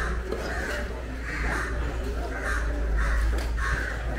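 Crows cawing over and over, about six harsh caws in four seconds.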